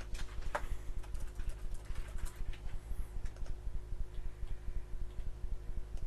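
Typing on a computer keyboard and clicking a mouse: a scatter of light clicks, mostly in the first three and a half seconds, over a steady low hum.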